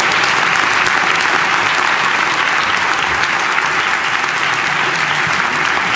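An audience applauding steadily, many people clapping at once, for a candidate walking onto the stage.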